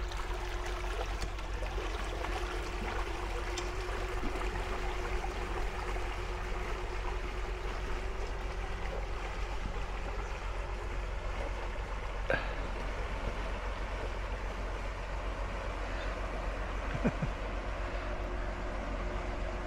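Steady hum of small boat motors moving off across the water, over a constant rush of water and wake. A faint steady tone in the motor sound fades after about ten seconds as the boats draw away.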